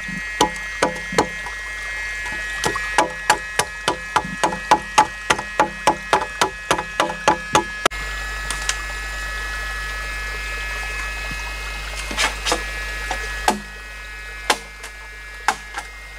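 Machete chopping into a green bamboo pole: a quick run of sharp woody knocks, about three or four a second, for the first half, then only a few scattered strikes.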